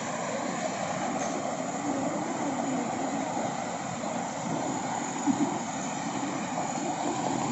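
A small engine running at a steady drone, unchanging throughout.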